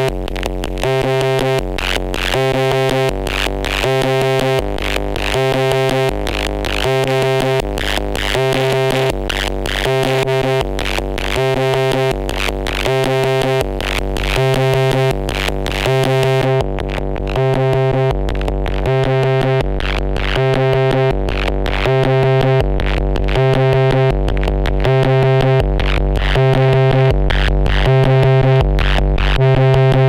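Twintropiques 23 Psychoacoustic analog synth, run through its Texas multiband overdrive, playing a looping noisy pattern: a bass alternating between two low notes in a steady repeating rhythm, under a buzzing pitched tone and sharp percussive clicks. About sixteen seconds in the top-end hiss drops away, and the sound grows slightly louder toward the end.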